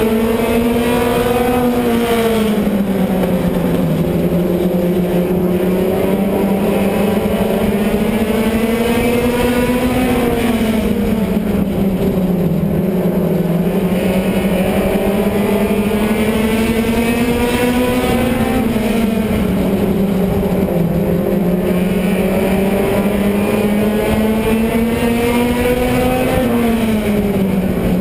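Stadium stock car engine at racing speed, heard on board. Its pitch climbs for several seconds down each straight, then drops sharply as the driver lifts for each turn, about every eight seconds.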